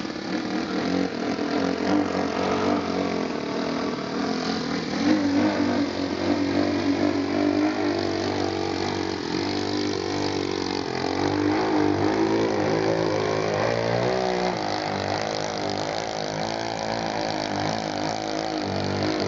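Engine of a Wrong Way RC Slide 58 aerobatic model airplane running in flight. Its pitch rises and falls continuously as the throttle is worked through 3D manoeuvres.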